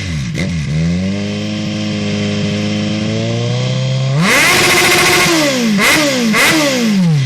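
Kawasaki Z1000's inline-four engine revving loudly through a full stainless-steel aftermarket exhaust. After a quick blip, it holds a steady rev for about three seconds. It then jumps sharply to a higher, louder rev for about a second, gives two more quick blips, and drops back near the end.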